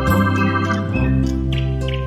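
Instrumental background music led by an electronic organ-like keyboard, held notes changing every half second or so.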